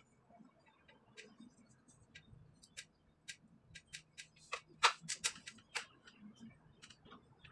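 Faint, irregular clicks and ticks as a cloth wipes a ceiling lamp's metal arms and glass shades, the parts lightly knocking against each other. They come quickest and loudest from about four and a half to six seconds in.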